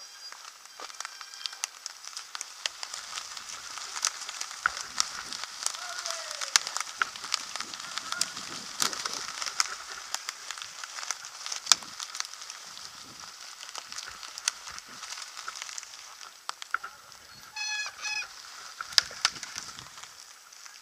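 Mountain bike rolling fast over dry fallen leaves and twigs: a steady rustling hiss of tyres in the leaf litter with constant crackles, clicks and rattles from the bike. Near the end, two short high squeals in quick succession, like brakes being grabbed.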